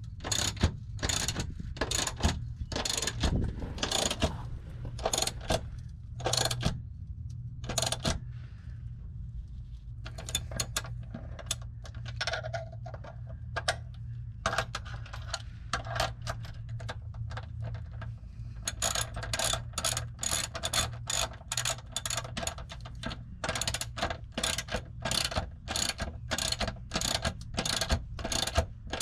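Hand ratchet wrench clicking in quick, even strokes as bolts are run in and tightened. There is a short pause about eight seconds in, and the strokes come faster from about two-thirds of the way through. A steady low hum sits underneath.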